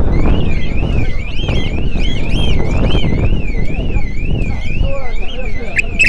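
Electronic alarm siren warbling, its pitch sweeping up and down about twice a second; it starts abruptly and stops just before the end, over steady background noise.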